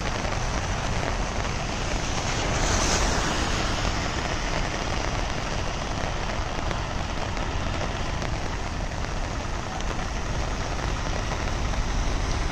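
Steady rushing noise of heavy rain and pouring water, unbroken and even throughout.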